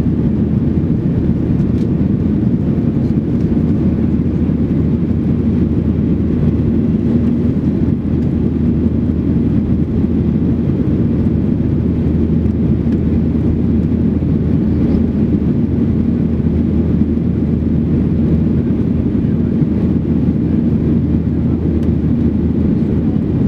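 Steady cabin noise of a Boeing 737-800 climbing after takeoff, heard from a window seat: its CFM56-7B turbofans running at climb power, a constant deep rush with a steady low hum.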